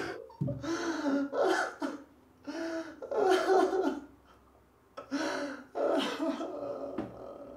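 A man's wordless, distressed vocal sounds, gasping and coughing, in three runs with short pauses between.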